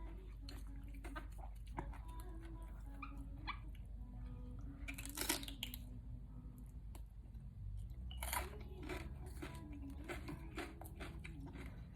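Close-up chewing and crunching of raw vegetables, with scattered small bites and a couple of louder crunches about five and eight seconds in.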